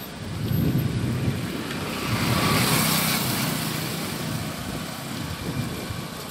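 Road noise from a vehicle travelling along a road, with wind buffeting the microphone as an uneven low rumble. A hiss swells and fades around the middle.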